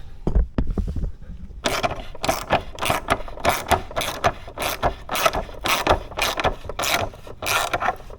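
Hand ratchet wrench tightening a fairing clamp bolt, clicking in quick back-and-forth strokes of about two a second. A few low knocks come before the ratcheting starts.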